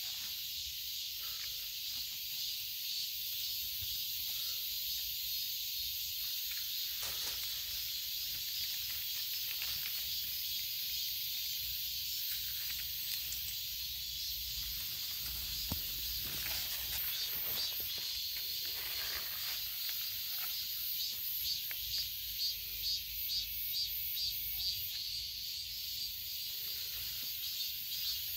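Steady high-pitched insect chorus in summer vegetation, taking on a fast, even pulsing rhythm in the second half.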